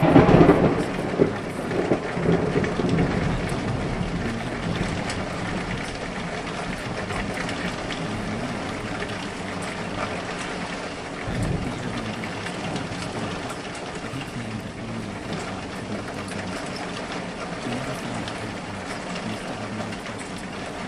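Rain-and-thunder sound effect: a loud thunderclap at the start rumbles away over a few seconds, and a second, softer rumble comes about eleven seconds in, over steady falling rain.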